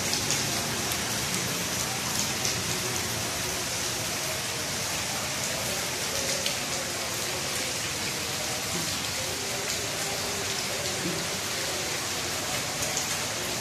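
Steady rain falling on wet paved ground, an even hiss with scattered sharp drips.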